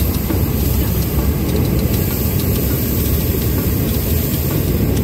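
Hot-air balloon propane burner firing close by with a steady, loud roar.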